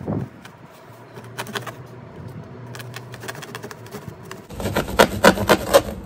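Knife cutting into a cardboard box: scattered scrapes and clicks, then a fast run of loud sawing strokes, about four a second, over the last second and a half.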